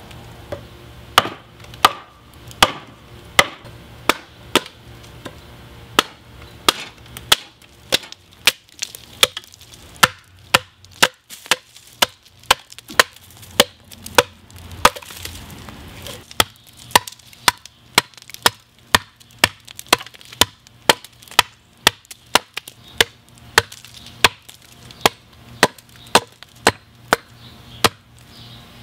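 Hatchet chopping into a birch log, a steady run of sharp blows about one or two a second, hewing one side of the log flat.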